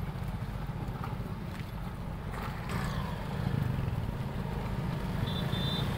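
Motorcycle and other vehicle engines running with a low rumble as traffic crosses the railway tracks. A short, high-pitched beep comes near the end.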